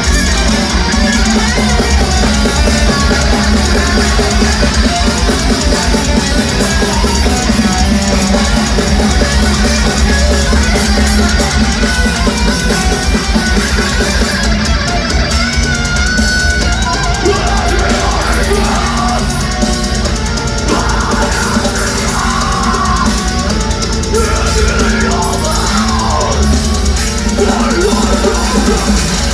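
Live death metal band playing loudly: heavily distorted electric guitars over a fast drum kit, with no break.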